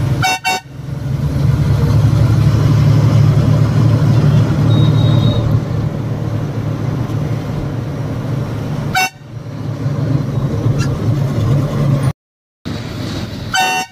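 Steady drone of a loaded lorry's diesel engine and road noise heard from inside the cab while driving, with three brief horn toots: near the start, about nine seconds in, and near the end. The sound cuts out completely for about half a second around twelve seconds in.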